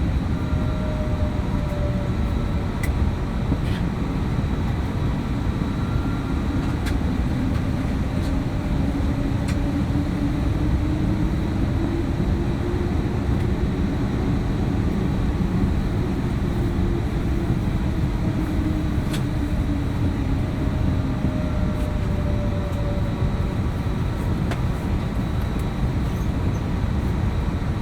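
Airbus A321neo jet engines and airflow heard as a steady cabin roar, with faint engine tones that slowly drift up and down in pitch.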